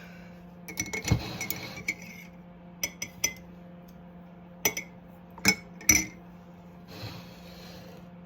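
Metal utensils clinking against kitchen dishes: a dozen or so sharp clinks in small clusters, each with a short ring, the loudest pair a little before six seconds in.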